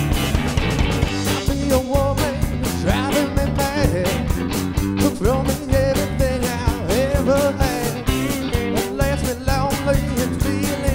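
Rock music soundtrack with a steady drum beat and a wavering melody line over it.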